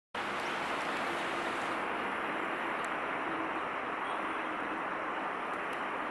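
Steady hiss of distant road traffic, starting abruptly, with faint broken tones over it.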